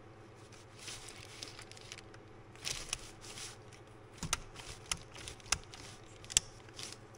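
Faint handling noise from a new plastic turn-signal stalk switch: a few sharp clicks, mostly in the second half, as it is turned and worked through its positions, with a soft crinkle of plastic packaging about three seconds in.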